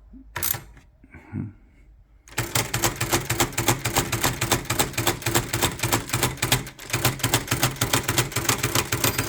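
VariTyper folding typewriter stepping its carriage along in a rapid, even run of escapement clicks. Near the end its margin bell rings with a high, clear ding, set to sound before the margin stop is reached.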